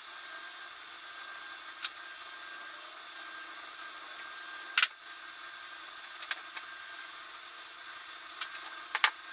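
A steady hum with a few sharp clicks or knocks, the loudest about five seconds in and a quick pair near the end.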